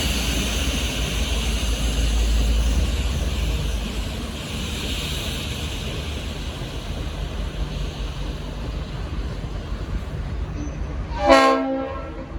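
V/Line N class diesel locomotive running as it arrives, loud for the first few seconds and then easing off. Near the end comes a single short blast, about half a second long, of its Leslie RS5T five-chime air horn.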